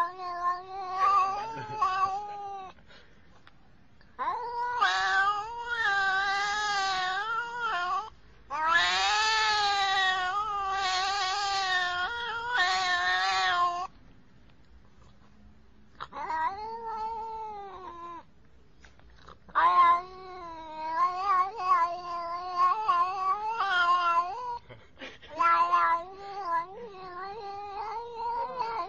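Domestic cat meowing up at the camera in a string of long, wavering calls, about six of them with short pauses between, the pitch bending up and down within each call.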